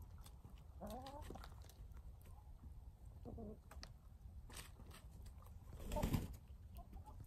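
Backyard hens clucking softly, two short rising calls about one and three and a half seconds in, over faint clicks and rustles of the birds scratching and pecking in garden soil. A louder brief noise comes about six seconds in.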